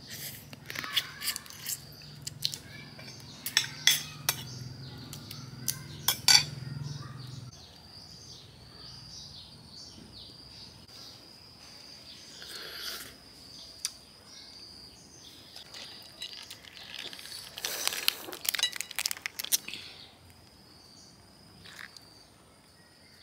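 Eating sounds: spoons clinking on ceramic plates and cooked crayfish shells cracking as they are broken open by hand. The sharp clicks come in a dense cluster over the first several seconds, thin out in the middle, and pick up again briefly near the end.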